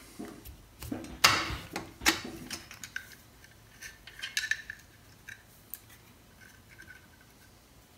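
Steel wrench clinking against a nut and the motorcycle frame's engine-mount bracket while nuts are loosened: two sharp metallic clanks about a second and two seconds in, then lighter clinks and ticks that die away.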